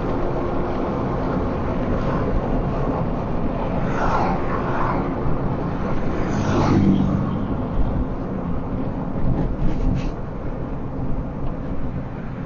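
Steady road and engine rumble of a car being driven, with brief louder sounds about four seconds in and again around seven seconds.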